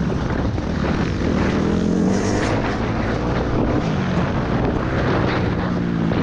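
Suzuki RM-Z four-stroke single-cylinder motocross engine running hard under throttle, its pitch rising and falling as the bike accelerates, with wind noise over the helmet-mounted microphone.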